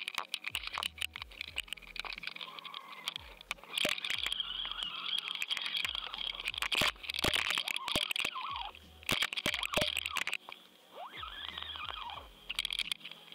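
Underwater crackling and clicking picked up through a submerged action camera's housing: dense irregular ticks and crackles over a steady high hiss, with a few soft low knocks.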